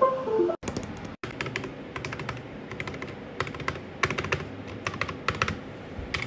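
Typing on a mechanical keyboard: quick clusters of sharp key clicks. It opens with a short falling run of tones.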